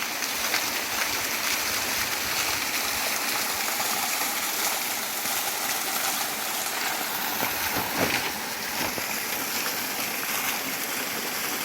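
A small waterfall on a mountain river: water falling and rushing steadily.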